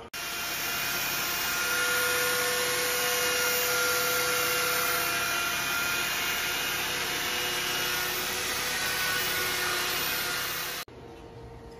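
Power sander with a blue sanding disc running against a spinning wooden turning on a lathe: a steady motor whine over a sanding hiss. It cuts off abruptly about a second before the end.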